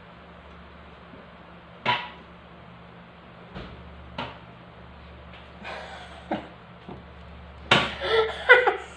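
A few scattered light knocks over a steady low hum, then a woman laughing loudly near the end.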